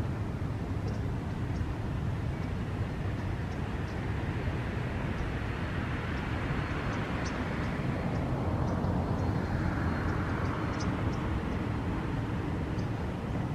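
Steady low background rumble with a passing engine noise that swells to its loudest about two-thirds of the way through, then fades away. Faint short high ticks sound now and then.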